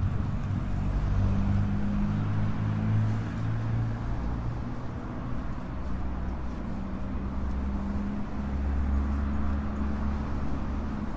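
Motor traffic in a town high street: vehicle engines running with a steady low hum and rumble, over the general noise of the street.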